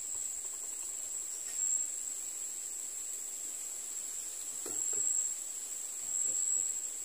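Steady high-pitched insect buzz from crickets or cicadas in the surrounding vegetation, with a couple of faint soft sounds about two and five seconds in.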